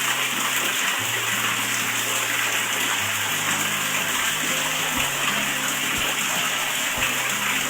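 Steady rush of running water, with background music underneath: low held notes that change about once a second and a soft thump roughly every second in the second half.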